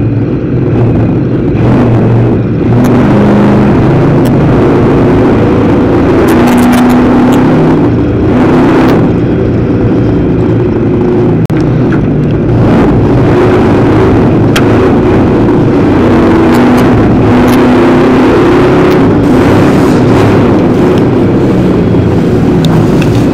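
Dirt-track race car's engine running hard under racing load, heard from inside the car, its pitch stepping up and down as the driver accelerates and lifts, with scattered sharp knocks from the car.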